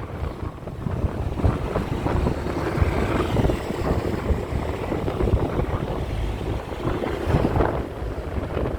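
Loud, uneven rumbling noise with irregular gusty swells and no steady pitch, like wind buffeting the microphone.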